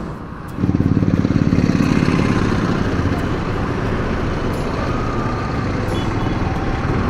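Yamaha R15 V4's 155 cc single-cylinder engine pulling away from a standstill: just over half a second in it gets suddenly louder under throttle, then runs on steadily as the bike gets under way in traffic.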